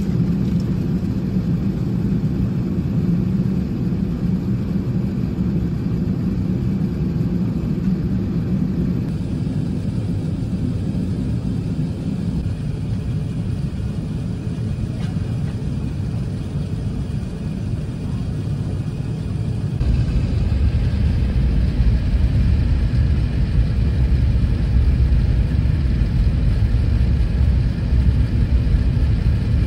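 Airbus A380 cabin noise during the descent: a steady low rumble of engines and rushing air. It steps up louder and deeper about two-thirds of the way through.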